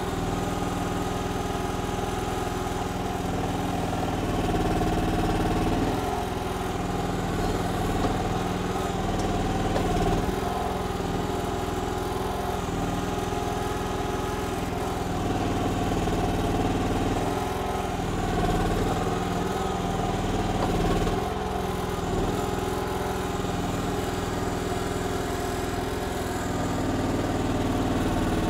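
Briggs gas engine of a KYMRON XH14 mini excavator running steadily while it digs, its note swelling and shifting every few seconds as the hydraulics take load.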